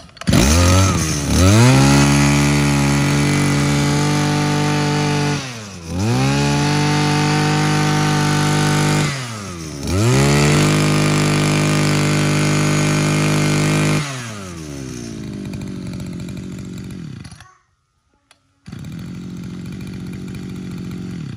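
Robin 22cc brush cutter engine revved up hard three times, each held at high speed for a few seconds with short dips between. It then falls back to a lower idle and cuts off suddenly, and a quieter steady running sound follows about a second later.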